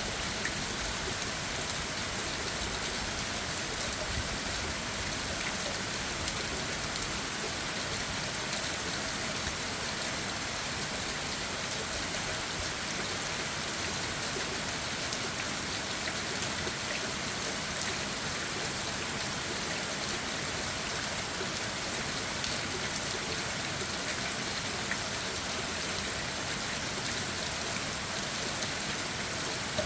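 Steady rain falling on leaves and the forest floor, a soft even patter with scattered individual drops.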